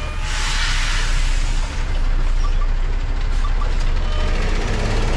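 Semi-truck diesel engine idling steadily, with a burst of air hissing from the air brake system in the first second or so.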